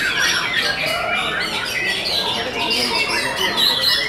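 Many caged white-rumped shamas (murai batu) singing at once: a dense, overlapping chorus of whistles, trills and rapid warbling phrases with no pause.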